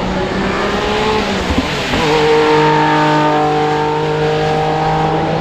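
Performance car engine running at high revs. About two seconds in the pitch changes, then holds steady.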